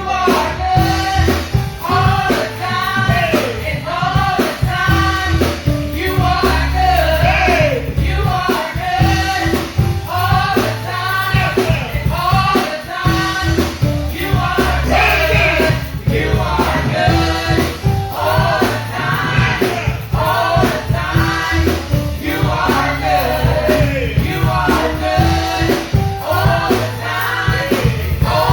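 Worship music: voices singing a gospel song over a band with bass and drums.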